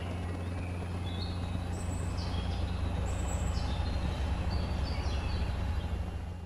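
Cartoon sound effect of a toy quadcopter drone hovering: a steady low motor hum, with birds chirping over it. The hum drops away right at the end.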